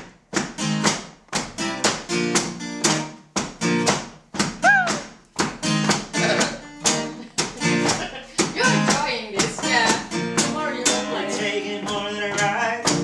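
Acoustic guitar strummed in a steady, driving rhythm of sharp chord strokes, about three a second, during an instrumental break in a song.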